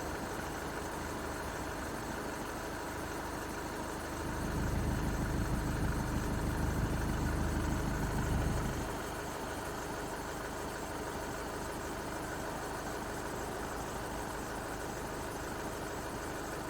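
Skoda Octavia's 1.6 TDI four-cylinder diesel engine idling steadily, carrying a strange noise that the owner relates to the belt drive. A louder low rumble swells in about four seconds in and drops away about five seconds later.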